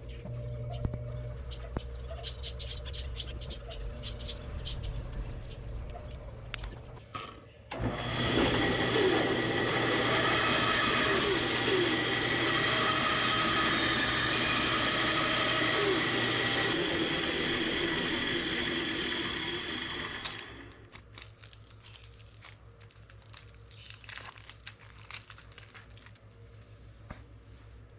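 A workshop power tool runs loudly and steadily for about twelve seconds, starting about eight seconds in and stopping about two-thirds of the way through. Before it there is a low steady hum; after it, quiet scattered clicks and knocks.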